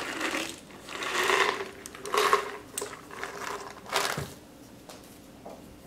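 Peanuts being scattered by a hand in a disposable plastic glove onto papaya salad in a glass dish: a few short bursts of rustling, then a single sharp knock about four seconds in. A faint steady hum sits underneath.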